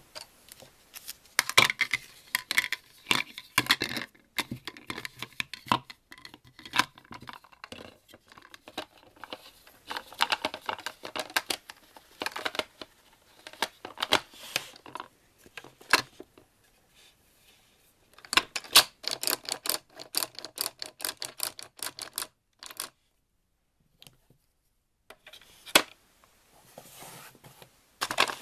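Hard plastic toy kitchen pieces being handled: irregular clicks, knocks and rattles as a toy mixer, its beaters and a plastic bowl are fitted together and moved. The sounds stop for about two seconds late on.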